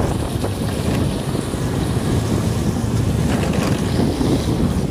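Wind buffeting the microphone of a phone filming from a moving vehicle: a steady rushing rumble, with road noise underneath.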